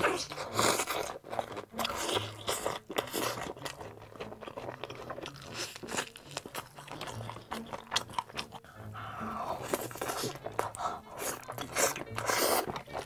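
A person eating crispy fried chicken in big, close-miked bites: repeated sharp crunches of the fried coating mixed with wet chewing.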